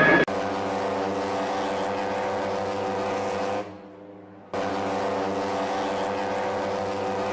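Ship's horn sounding two long, steady blasts of about three and a half seconds each, dying away briefly between them.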